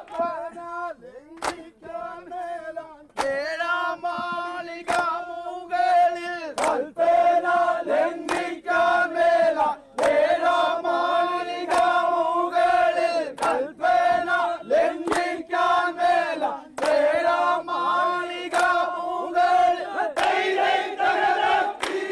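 A large group of men singing a rhythmic snake-boat song together in long unison phrases, cut by sharp knocks every second or so.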